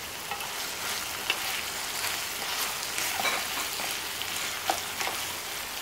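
Chicken pieces sizzling in oil and their own juices in a nonstick pan after about ten minutes' covered cooking, stirred with a wooden spatula: a steady sizzle with a few light scrapes and ticks.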